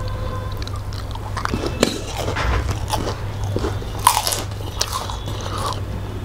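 Close-up eating sounds of two people eating rice and fish curry with their hands: wet chewing, biting and crunching with scattered sharp clicks. About four seconds in comes a louder clatter as a steel plate is tipped over rice. A steady low hum runs underneath.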